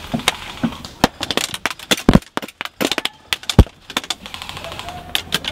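Airsoft BBs striking wooden pallet boards and the camera and microphone: rapid, irregular sharp cracks, thickest in the middle, with two heavy knocks about two and three and a half seconds in.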